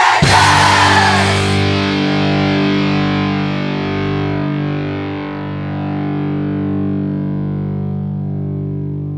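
The end of a punk rock song: a loud passage breaks off about a second and a half in, leaving a distorted electric guitar chord ringing out and slowly fading.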